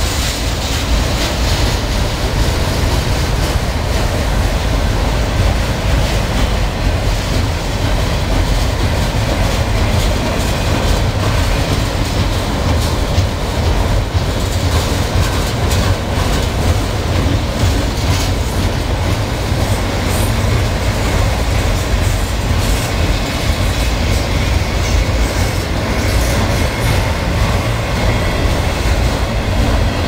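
Freight train of enclosed autorack cars rolling past at steady speed: a continuous, loud rumble of steel wheels on rail, with the clickety-clack of wheels over the rail joints.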